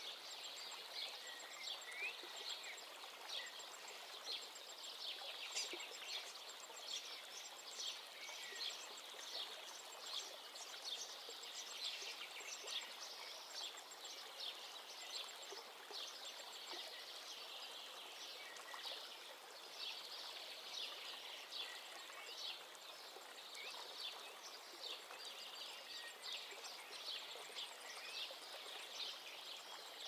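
Outdoor ambience of small waves lapping at the water's edge, with birds chirping and twittering throughout.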